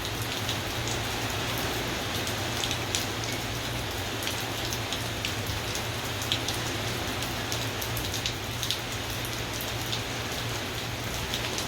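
Heavy rain pouring steadily, with many sharp drop hits ticking close by.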